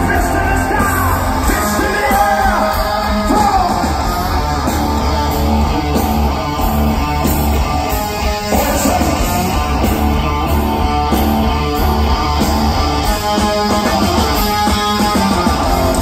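A hard rock band playing live at full volume through a large PA, with distorted electric guitars, bass, drums and singing, recorded from within the crowd.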